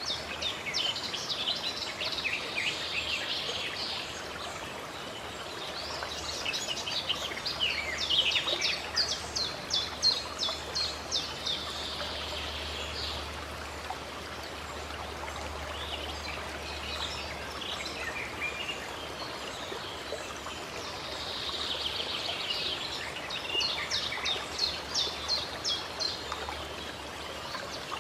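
Songbirds singing in three bouts of rapid, high chirping notes over a steady hiss of running stream water.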